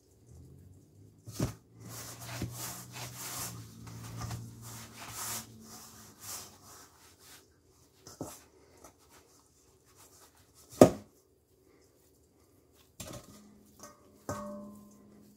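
Hands kneading a stiff sourdough dough in a stainless steel bowl, working in the dry flour: rubbing and squishing of dough against the bowl for the first several seconds. Sharp knocks of the bowl on the counter come through it, the loudest about eleven seconds in, and the metal bowl rings briefly after a knock near the end.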